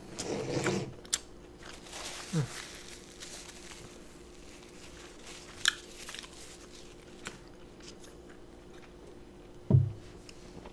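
A person chewing steak fries, with a few small mouth clicks and smacks. A brief low sound near the end is the loudest thing.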